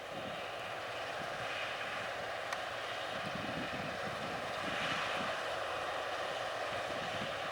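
Claas Lexion 750 Terratrac combine harvester running steadily while harvesting wheat: a constant machine drone with a steady tone running through it, swelling slightly about five seconds in.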